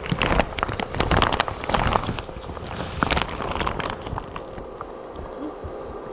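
Irregular rustling and clicking handling noises, busiest in the first half and quieter after about three and a half seconds, over a faint steady hum.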